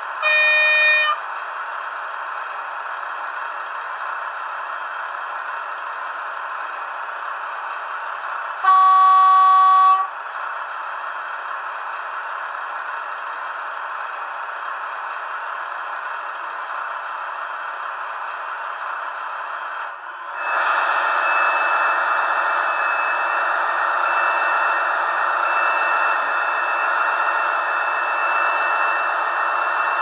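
Trix V160 model diesel locomotive's DCC sound decoder playing through its small onboard speaker, thin with no bass: a steady diesel idle and two horn blasts of different pitch, a short one at the start and a longer, lower one about nine seconds in. About twenty seconds in, the engine sound steps up louder, with a steady high whine over it.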